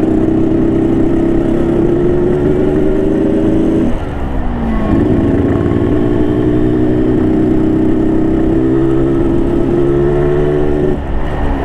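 Yamaha RX King's 135 cc two-stroke single-cylinder engine running under way, its note slowly climbing. It dips sharply about four seconds in, picks up again at once, and drops once more near the end.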